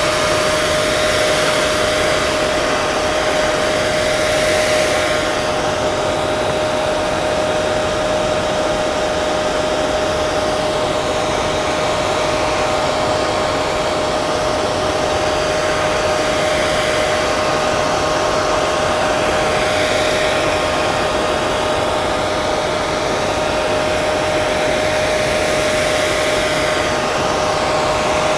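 Hair dryer running continuously: a steady, even blowing rush with a constant motor whine.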